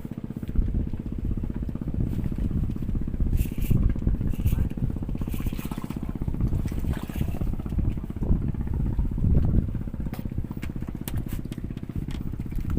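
A small engine running steadily, with a fast regular low pulse.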